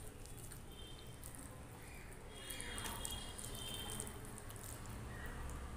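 Fingers mixing cooked rice with liquid kadhi on a steel plate, making soft, wet sounds.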